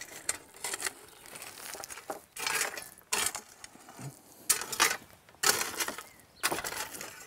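A shovel blade scraping and jabbing into loose crushed-stone sub-base against a timber edging board. The stones crunch and clink in short bursts, about one a second.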